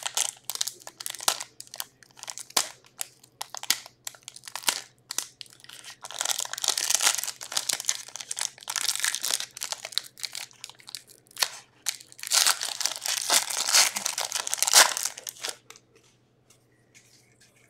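Foil wrapper of an Upper Deck SP Authentic hockey card pack crinkling and tearing open as the cards are pulled out and handled. It comes in repeated rustling bursts with small clicks and stops near the end.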